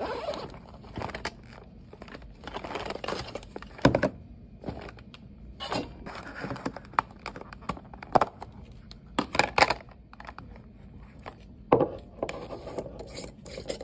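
Zipper of a fabric bag pulled open, then rustling and clattering as a plastic food tub and a glass jar with a metal lid are taken out and handled, with several sharp knocks as they are set down, the loudest about four seconds in.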